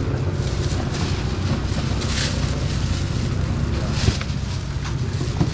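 Steady low mechanical hum under outdoor market noise, with faint background voices and a few brief rustles.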